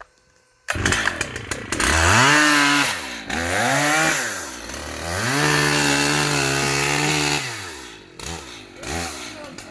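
A chainsaw engine starts about a second in and is revved three times, the last rev held for about two seconds, then drops back toward idle near the end.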